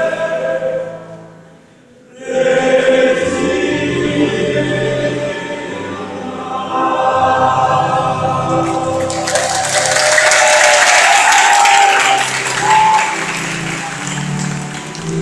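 Male choir singing in a reverberant chapel, with a short break about a second and a half in before the voices come back in. About nine seconds in, applause starts and goes on over the end of the singing.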